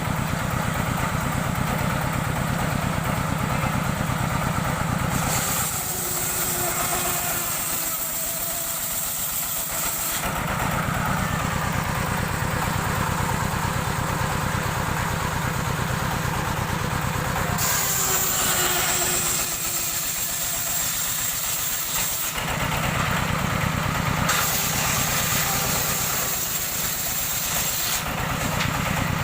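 Engine-driven circular sawmill running steadily, with stretches where the saw cuts through teak timber and a high whine rises over the engine hum, twice.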